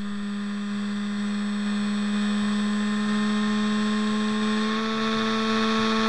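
Small brushless outrunner motor running at steady speed, a continuous electric hum-whine that gets a little louder over the first couple of seconds. It is vibrating heavily because the motor is out of balance.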